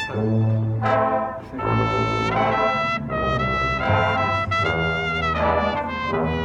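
Marching band brass section playing loud, held chords that change about once a second over a steady bass line.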